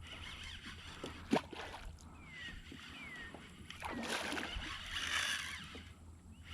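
Water sloshing and splashing around a fishing kayak, with a louder rush of splashing about four seconds in that lasts nearly two seconds. A sharp click comes earlier, and a few short, falling whistle-like calls come before the splashing.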